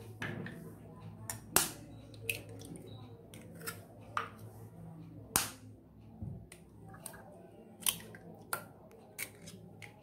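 Eggshells being tapped and cracked open over a bowl as two raw eggs go in: a series of sharp, separate clicks and cracks.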